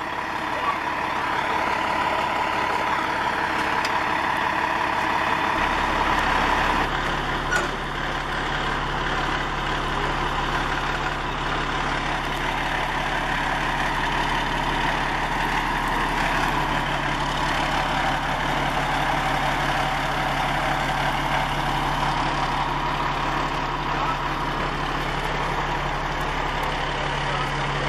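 Fire truck's diesel engine running steadily, a continuous low hum whose rumble grows stronger about five seconds in.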